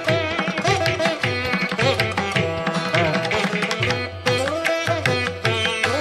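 Instrumental background music in an Indian classical style: a plucked string melody with bending notes over a quick hand-drum rhythm.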